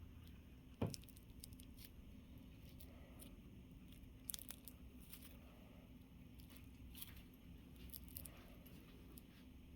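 Near silence: quiet room tone with a low steady hum, faint rustling and a few small clicks, with one brief, slightly louder sound about a second in.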